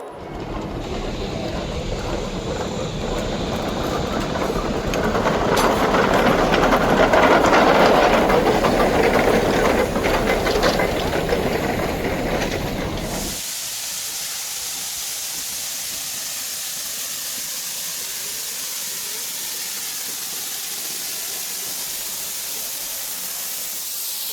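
Geared steam logging locomotive working close by, with steam exhaust and hissing steam and some clanking, loudest about halfway through. At about 13 seconds it cuts off suddenly to a steady high hiss of escaping steam.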